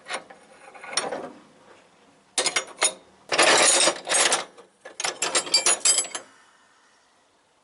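Loose metal hand tools clinking and clattering as they are rummaged through in a tool chest, in several bursts of rapid clicks, the busiest between about two and a half and six seconds in, then going quiet.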